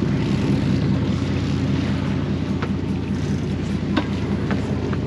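Engines of a 31-foot Bertram sportfishing boat running steadily, with wind and water noise over them and a few faint ticks.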